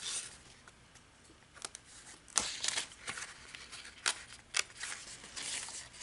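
Scissors cutting open the plastic wrap on a paper pad: a few sharp snips and clicks, the loudest about halfway through, then the wrapper crinkling and rustling as it is pulled off the paper.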